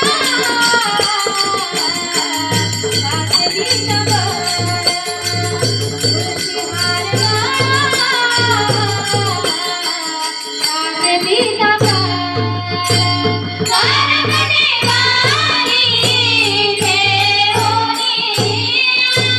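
Devotional bhajan music from a group: a melody with a steady drum beat and jingling percussion. The low drumbeat drops out briefly around ten seconds in, then resumes.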